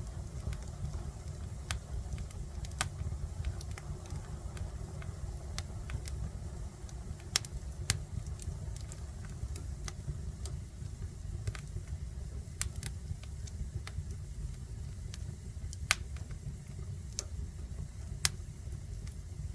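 Wood fire burning in a fireplace, crackling with sharp, irregular pops over a steady low rumble.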